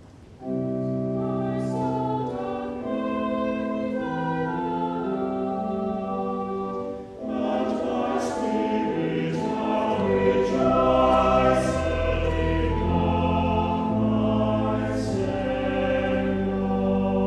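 Church choir singing with organ accompaniment in held chords that change every second or two. There is a short break about seven seconds in, and a deep organ bass comes in about ten seconds in.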